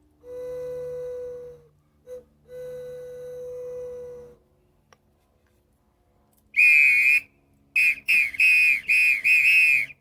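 Small bird-imitating toy whistles blown: first two steady, low whistle tones of about two seconds each, then, in the last few seconds, a louder high warbling whistle in several short trilled blasts.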